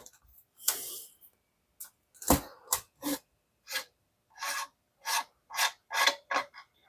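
Short metal-on-metal scraping strokes, about two a second, as the hexagonal threaded fitting on a 1954 Casco steam iron is turned and unscrewed from the base.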